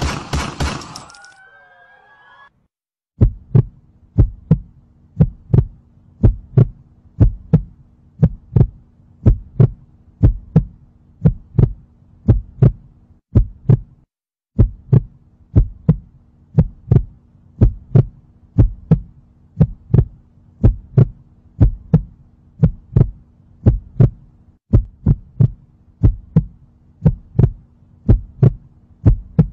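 A burst of gunfire dies away in the first second. Then, from about three seconds in, a heartbeat sound effect plays: slow, even double thumps over a low steady hum, breaking off briefly near the middle and carrying on.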